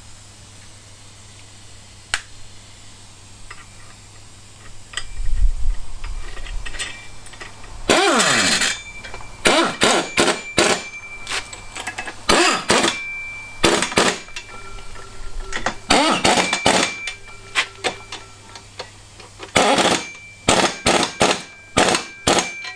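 Cordless impact wrench run in a series of short bursts, hammering bolts tight as an engine-stand bracket is fastened to the crankcase. A heavy low rumble of handling comes a few seconds before the first burst.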